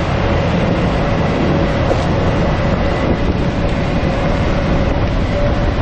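Five Suzuki 250 hp V6 four-stroke outboard motors running together at high speed, a loud, steady drone mixed with the rush of the churning wake.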